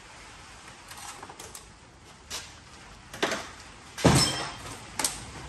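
Pieces of scrap metal clanking as they are handled and tossed: a few light clicks, then several sharper knocks, the loudest about four seconds in, ringing briefly.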